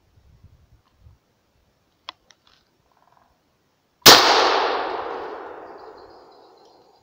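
A single shotgun shot about four seconds in, very loud, with a long rolling echo that fades over nearly three seconds: the shot that downs a hazel grouse called in with a decoy whistle. Two faint clicks come about two seconds before it.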